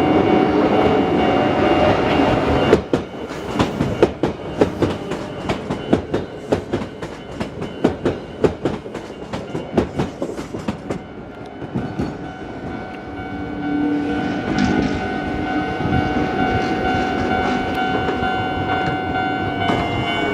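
Hakone Tozan Railway 1000-series two-car electric train passing over a level crossing. It runs by steadily at first, then its wheels click in a dense run over the rail joints for about eight seconds. A level-crossing warning bell rings steadily before and after the clicks.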